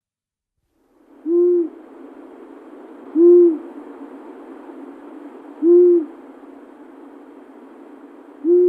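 Owl hooting: four short, low hoots evenly spaced about every two and a half seconds, over a faint steady hiss.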